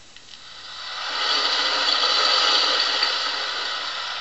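Recorded car engine under load pinking (pre-ignition), a rattle like a bag of nails, played back from a flexi-disc through a small portable record player's speaker. It fades in over about the first second, then holds steady. Pinking comes from using too low a grade of petrol or from ignition timing set too far advanced.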